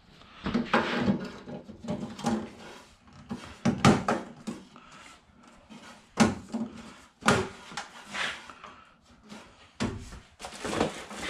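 Mesh grille inserts being handled and pressed into the slots of a Jeep TJ's textured grille: a string of separate knocks and clicks a second or two apart, the inserts snapping into place.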